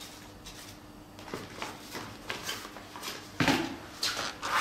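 Handling noise: light clicks and rustles as small items on a table are picked up and moved, with a couple of louder rustles near the end, over a faint steady hum.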